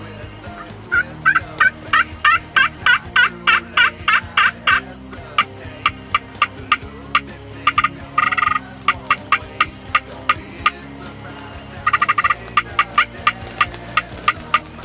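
Wild turkey calling: a run of quick yelps, about four a second, for roughly four seconds, then sharp clucks. A wild turkey gobbler gobbles twice, about 8 seconds in and again around 12 seconds.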